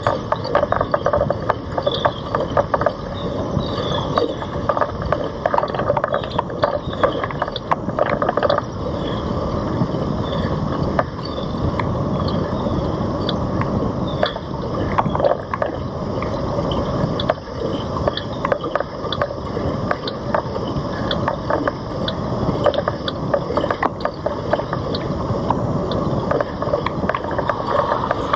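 Citi Bike being ridden, rattling and clicking over a steady rush of tyre and wind noise.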